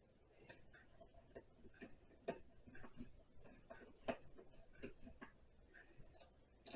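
Faint, irregular small clicks and light taps of handling, with near silence between them; two taps, about two seconds in and about four seconds in, stand out a little.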